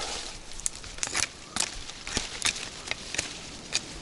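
Dry branches cracking and snapping as twigs are cut and broken off by hand: a string of sharp, irregular cracks.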